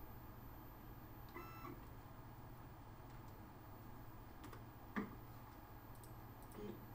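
Faint steady hum, broken about a second and a half in by a short whine, about a third of a second long, from a Bob CNC router's stepper motors making a 5 mm jog move. A single sharp click comes about five seconds in.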